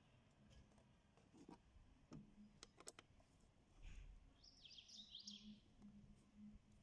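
Near silence with a few faint clicks and taps of a small nut driver on the intake hose clamp screw. A short, faint bird chirping comes just after the halfway point.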